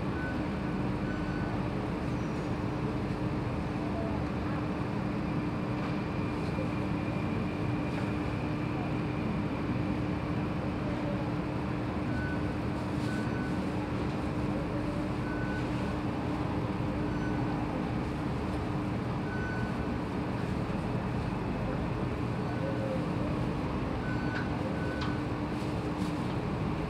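Stationary Alstom Metropolitan C830C metro train standing at a platform with its doors open, giving a steady hum with a low continuous tone that stops near the end, over station background noise.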